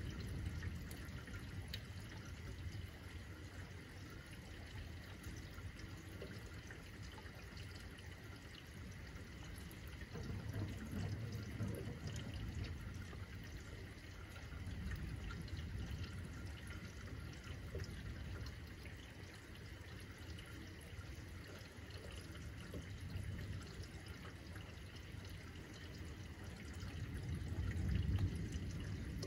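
Steady rain falling and dripping, with low rumbles of distant thunder that swell and fade a few times, the loudest near the end.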